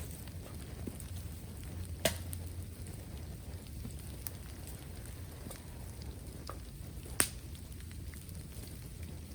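Burning bamboo crackling with scattered small snaps and two sharp, loud pops, about two seconds in and again near the end, as the sealed bamboo sections burst in the heat. A low steady rumble runs underneath.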